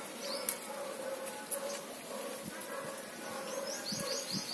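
Faint garden ambience: a steady insect buzz and a few soft snaps and rustles of Malabar spinach leaves being picked by hand. A bird gives a quick run of short, high rising chirps near the end.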